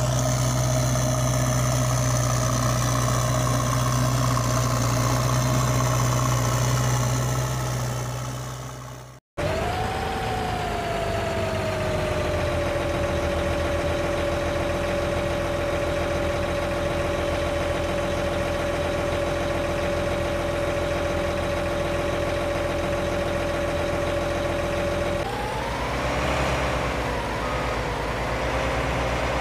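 Steady engine-like drone with a strong low hum that cuts off abruptly about nine seconds in. It is replaced by a steady hum carrying a clear, even whine, which rises briefly at its start and shifts in tone again near the end.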